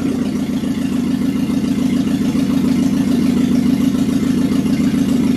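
Carburetted car engine running at a steady idle, an even, unchanging firing note.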